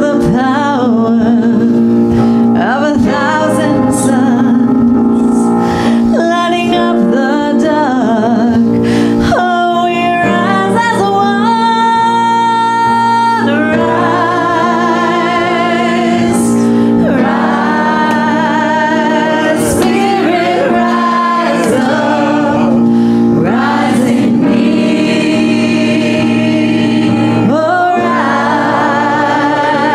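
Small mixed choir singing a slow gospel-style song, voices wavering with vibrato and holding long notes over steady sustained chords.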